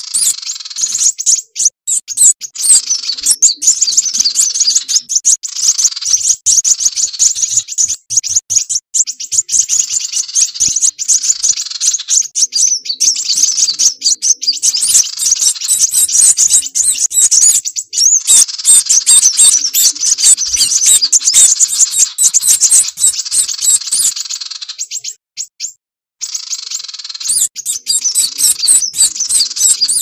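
Bird-lure recording of kolibri wulung sunbird calls mixed with sirpu bird calls: dense, rapid high chirps and twitters, with a brief break of about a second near the end.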